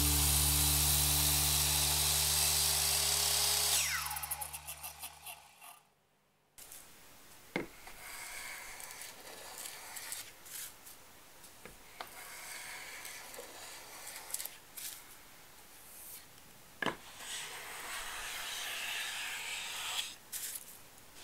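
Circular saw running, then spinning down with a falling whine about four seconds in. After a short gap, a small wooden hand plane makes several rasping strokes along the edge of a softwood strip, with a few sharp knocks as the plane meets the wood.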